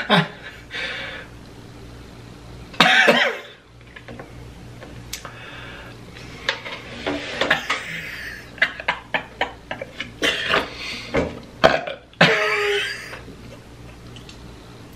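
A person eating chicken tenders: chewing and lip-smacking clicks, broken by loud burps, one about three seconds in and a longer one near the end.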